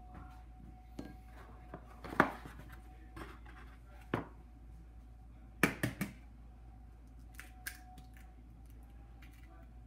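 Sharp taps and knocks of an egg being handled and cracked against a plastic mixing bowl: a loud knock about two seconds in, another near four seconds, then a quick run of three taps, over a faint steady hum.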